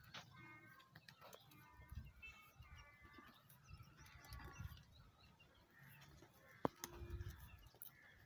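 Faint birds calling in short, repeated phrases through the first five seconds, with one sharp click about seven seconds in.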